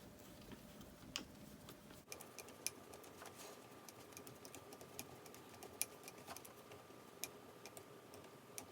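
Faint, irregular small clicks and ticks of a long screw being tightened into the plastic housing of an RC transmitter to fasten a thumb-steering adapter.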